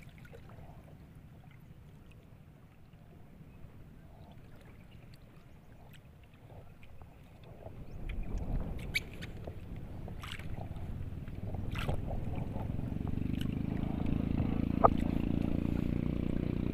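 Faint wind and water noise around a small boat with a few sharp clicks. From about eight seconds in, a motor's drone grows louder and then runs steadily to the end.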